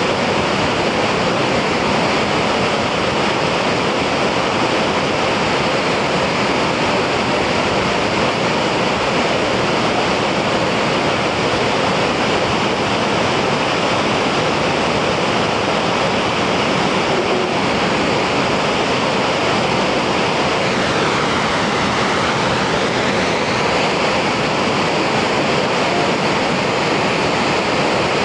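Steady rushing roar of a broad waterfall, a wide curtain of water pouring over a drop and churning into a foaming plunge pool.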